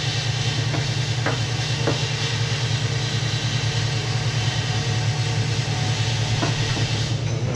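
Steady low machine hum with an even hiss throughout, with a few light clicks and taps near the start and again near the end from hand work on the mower's cutting deck.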